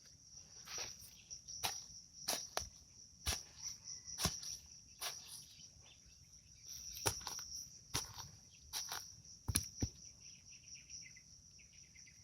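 A steady high-pitched insect drone, with irregular sharp knocks and clicks about one or two a second scattered over it.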